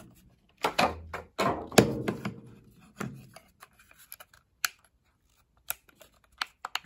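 Clatter and rustle of the plastic Eton FRX2 radio being handled, then a few sparse single clicks as its knobs are turned.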